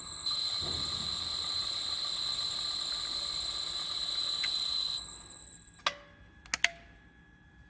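High steady electric whine over a hiss, typical of a welding rotator's electric drive running, which stops about five seconds in. Three sharp metallic clicks follow near the end.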